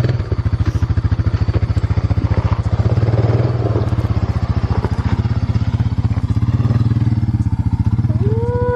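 Small engine running at a steady speed with a fast, even putter.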